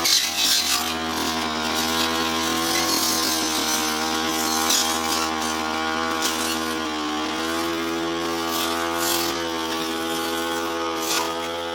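Brush cutter (grass-cutting machine) running steadily at working speed as it cuts tall, thick grass. Its line or blade makes short swishes now and then, and the engine bogs down slightly about seven seconds in, then picks back up.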